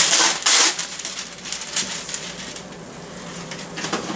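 A sheet of wax paper crinkling and rustling as it is handled and spread over a baking pan, loudest in the first half second, then lighter crackles.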